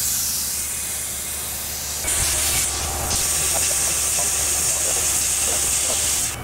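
Mist coolant nozzle hissing steadily on a Tormach PCNC 1100 CNC mill while it drills a row of holes in a steel soft jaw, with the machine's low steady hum beneath. The hiss grows louder about two seconds in and drops right at the end.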